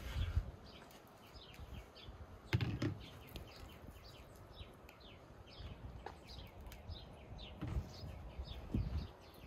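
Small birds chirping in quick, repeated short notes in the background, with a few dull knocks as a plastic colander and soft cheese wheels are handled on a wooden board; the loudest knock comes about a third of the way in.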